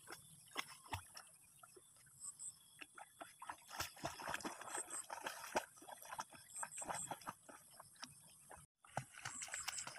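A dog paddling through shallow, reedy water, making irregular small splashes and sloshes. Short high chirps in twos and threes sound every couple of seconds.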